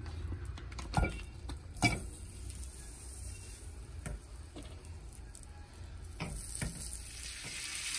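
Butter melting in a hot nonstick pan, starting to sizzle, with a silicone spatula pushing it around the pan. Two sharp knocks about one and two seconds in, then a few lighter taps, and the sizzle grows louder over the last couple of seconds.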